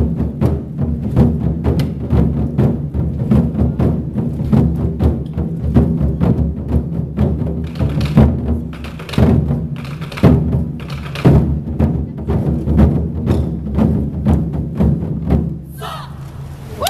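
Ensemble of large barrel drums beaten with sticks in a fast, driving rhythm, with heavier unison hits in the middle stretch. The drumming stops about a second before the end.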